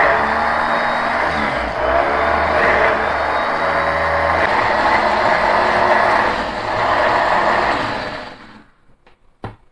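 A 250 W push-top electric mini chopper runs steadily as its stainless-steel blades grind onions with a little water into paste. The motor cuts off about eight seconds in, and a light knock follows near the end.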